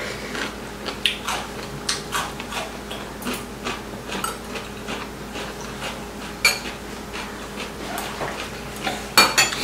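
Metal spoons and chopsticks clinking against ceramic bowls and plates during a meal: a scattering of light, separate clicks, with one sharper clink about six and a half seconds in.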